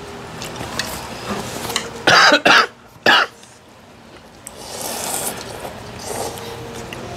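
A person coughing hard from the heat of extremely spicy noodles: three loud coughs in quick succession about two to three seconds in.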